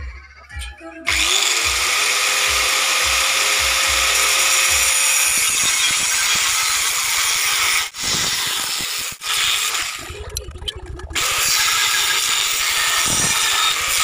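Bosch angle grinder spinning up about a second in and cutting through a steel bar, a loud harsh grinding. It briefly eases off twice near the middle and runs lighter for about a second before biting into the metal again.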